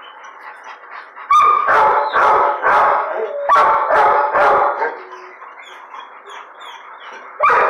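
A dog barking in quick repeated barks, about three a second, in two runs of roughly five each, then a lull before barking starts again near the end, over a steady background din.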